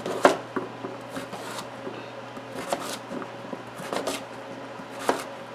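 Chef's knife chopping raw jicama into cubes on a plastic cutting board: unevenly spaced knocks of the blade cutting through and striking the board.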